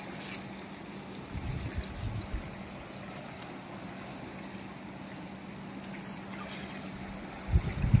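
Fast river running over rocks: a steady rushing hiss of moving water. A few short low thumps break in briefly, loudest near the end.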